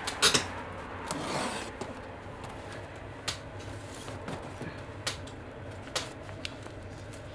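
Cardboard boxes and wrapped packages of printer paper handled on a shelf by a gloved hand: paper and cardboard rustling and scraping, with a few sharp knocks, the loudest just after the start.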